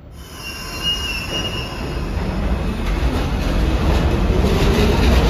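R68 subway train pulling out of the station: a high squeal during the first couple of seconds, then the rumble and wheel clatter on the rails grow steadily louder as it gathers speed.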